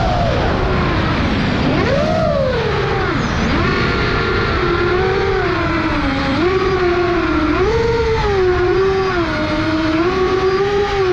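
FPV quadcopter's Brotherhobby 2808 1500kv brushless motors and propellers whining. The pitch dips and rises again and again as the throttle changes, over a steady rush of wind and prop-wash noise.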